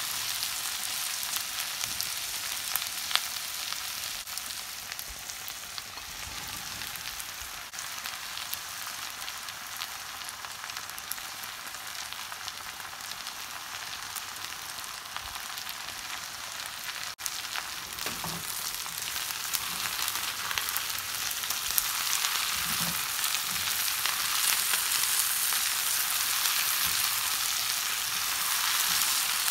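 Green beans, onions and potato strips sizzling in hot oil in a nonstick pan, a steady frying hiss that grows louder in the second half. Occasional scrapes and soft knocks of a silicone spatula stirring the vegetables.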